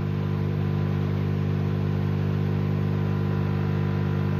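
A steady, low electrical hum with a buzzy edge, unchanging in pitch and level.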